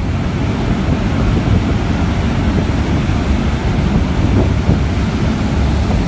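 A fast boat's churning wake and rushing wind buffeting the microphone: a steady, loud rush with a heavy low rumble.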